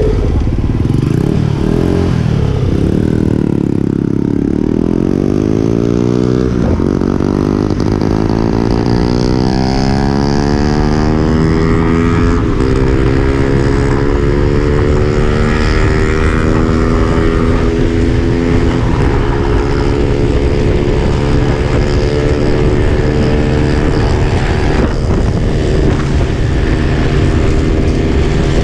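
Small motorcycle engine pulling away from a stop, its pitch rising steadily for several seconds and then running fairly even at cruising speed. Steady wind rumble on the helmet-mounted camera's microphone runs underneath.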